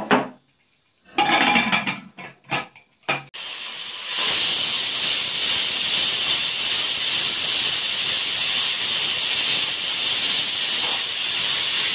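Pressure cooker whistling: steam venting from under the weight valve in one long, loud, steady hiss that starts about three seconds in, grows louder a second later and stops near the end. It is the first whistle, the sign that the cooker, holding fenugreek seeds in water, has come up to pressure.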